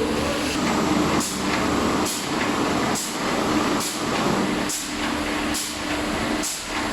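Steady heavy machinery noise with a held hum, crossed by a short hiss pulse about once a second.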